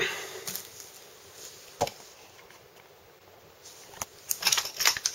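Handling noises: a few sharp isolated clicks and knocks, then a quick run of clicks and rattles about four seconds in as a plastic case of small precision screwdrivers is picked up.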